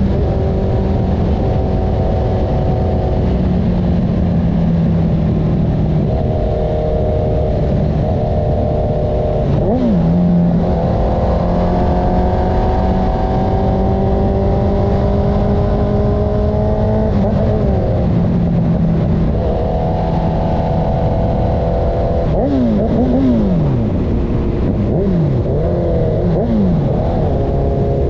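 Honda CB1000R's inline-four engine running through a CS Racing full exhaust system while riding: the engine note holds steady at a cruising pace, changing pitch with a couple of gear changes, then gives several quick rev blips near the end.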